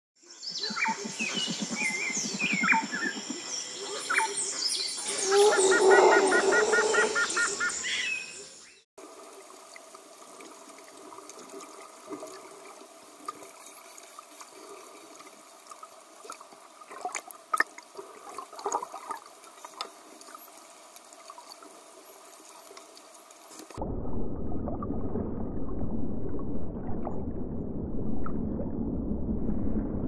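Underwater sound: a dense chorus of dolphin whistles gliding up and down, with click trains, for the first nine seconds or so. The whistles then give way to quieter clicks and faint high whistles, and in the last quarter to a low rushing water noise.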